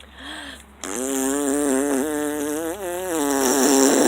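A person making a long buzzing drone with the voice, like a lawnmower impression. It starts about a second in, holds for about three seconds on one slightly wavering pitch, and a short rising hum comes just before it.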